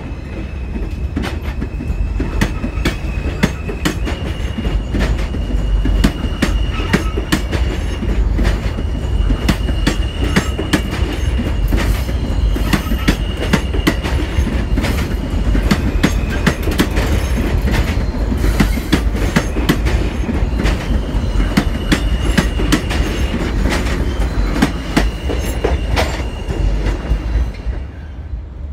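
Subway train running along the station track, its wheels clicking steadily over the rail joints. A high wheel squeal comes and goes throughout.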